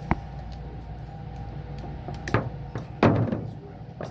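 Hand-handling noises from working the solenoid coil's wiring: a few short knocks and one louder clatter about three seconds in, over a steady mechanical hum of running equipment.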